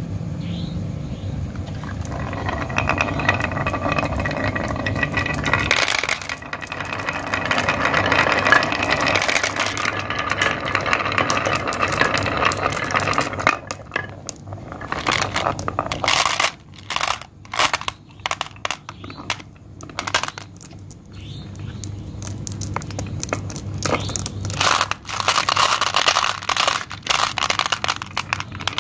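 Many glass marbles rolling and rattling down a grooved wooden marble-run board, knocking against each other and dropping into a plastic toy dump truck's bed. The rolling is continuous for the first half, thins to separate clicks and clacks midway, and grows dense again near the end.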